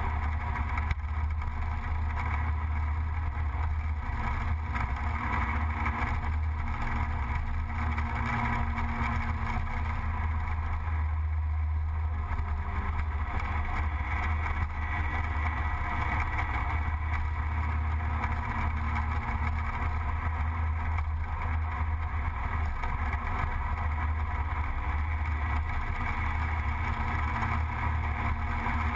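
Gilera Runner 180 scooter's single-cylinder engine running steadily while riding at speed, heard on board, with road and wind noise.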